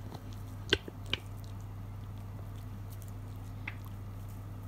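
Cat eating dried bonito flakes from a glass dish: quiet chewing and mouth sounds, with two sharp clicks about a second in and a third about three and a half seconds in. A steady low hum runs underneath.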